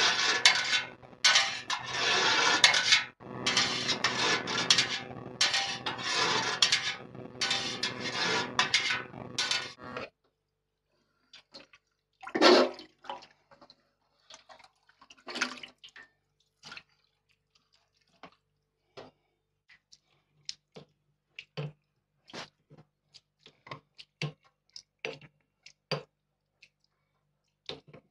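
Water running or pouring for about ten seconds, then stopping abruptly. After that come scattered light clinks and knocks of kitchen dishes and utensils.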